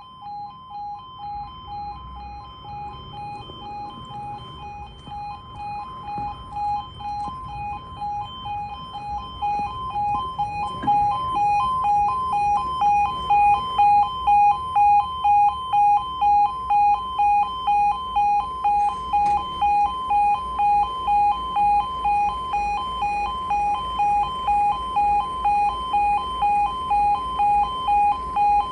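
Automatic half-barrier level crossing alarm sounding as the crossing closes: an electronic two-tone yodel, two pitches alternating in an even repeating pattern, growing much louder about eleven seconds in.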